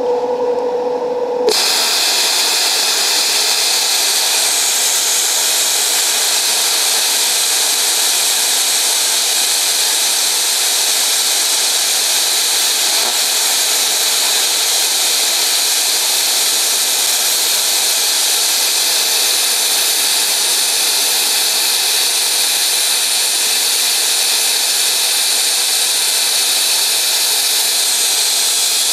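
Longevity ForceCut 62i 60-amp plasma cutter cutting slowly through a 1¼-inch-thick metal bar. After a short steady tone, the arc catches about a second and a half in and the cut runs as a loud, steady hiss.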